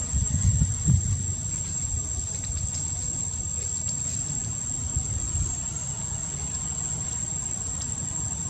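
Steady high-pitched drone of insects, with a low rumble beneath that is strongest in the first second.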